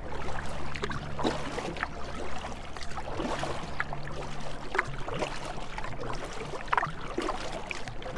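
A canoe being paddled on calm open water: irregular soft splashes and drips of the paddle, with water lapping at the hull.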